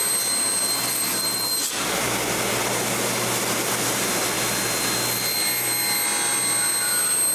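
Table saw running and cutting a spline groove in the wood side of a tray. The steady whine gives way to a rougher cutting noise about two seconds in, as the blade enters the wood.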